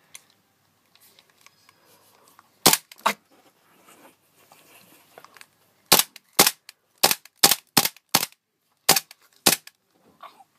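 Gas blowback airsoft pistol firing single shots, the slide snapping back each time: two shots about three seconds in, then eight more at roughly half-second intervals.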